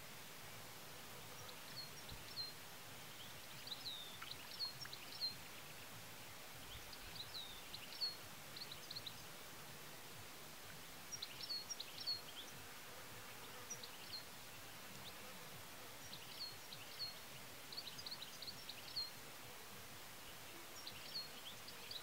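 A small songbird singing short, high chirping phrases, one every two to three seconds, over a faint steady hiss.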